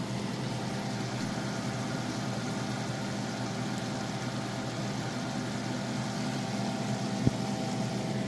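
Steady mechanical hum of a running motor, a constant drone with a faint hiss, broken once by a sharp click about seven seconds in.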